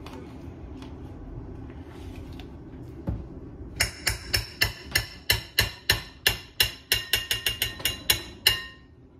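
A spoon knocking repeatedly against the rim of a bowl, about twenty sharp ringing taps at roughly four a second starting about four seconds in, shaking clumps of frozen sour cream off the spoon.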